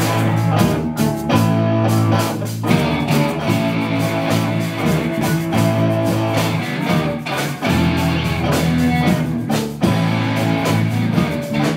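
A rock band playing live: electric guitars over a drum kit keeping a steady beat.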